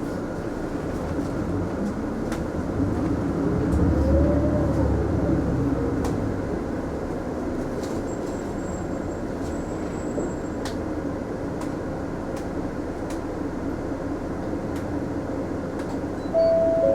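Mitsubishi Fuso Aerostar city bus heard from inside the cabin, with steady engine and road noise. A few seconds in, the engine note swells, rising and then falling once as the bus accelerates. A short steady tone sounds near the end.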